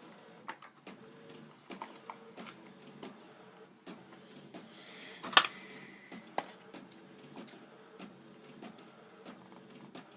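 Scattered clicks and handling noises of a small cable box being forced open by hand, with one sharp snap about five seconds in. A printer runs steadily underneath.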